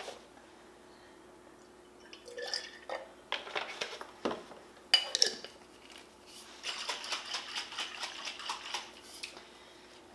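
A glass Ragu sauce jar with half-and-half poured in being handled and shaken to get the remainder of the sauce out: light clinks, one sharp knock about halfway, then a couple of seconds of quick rattling and sloshing.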